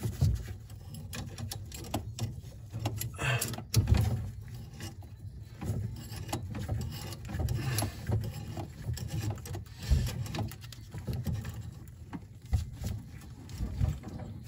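Pliers wrench working the nut of a braided supply line on a chrome angle stop valve: scattered light metal clicks and rubbing over irregular low handling bumps.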